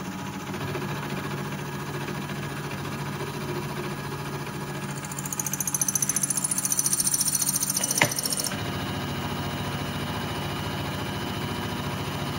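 Milling machine spindle running steadily while an end mill takes a light pass of about five thousandths along the edge of a steel jig plate. About five seconds in, a loud high-pitched cutting sound sets in and cuts off suddenly some three and a half seconds later, with a sharp click near its end.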